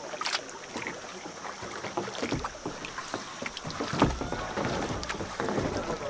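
Kayak paddle dipping and splashing in calm water, with scattered drips and small splashes coming at irregular moments.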